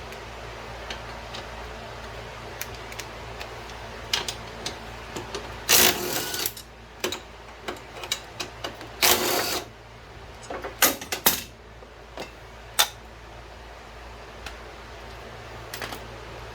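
Hand tools working bolts out of a Suzuki LT230 engine's side cover: a ratchet run in two short bursts about 6 and 9 seconds in, with scattered metal clicks and clinks between them.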